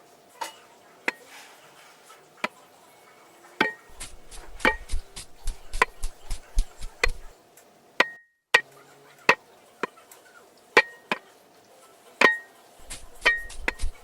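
A series of sharp knocks and clicks at irregular intervals, some with a brief ringing tone, over a faint steady hum.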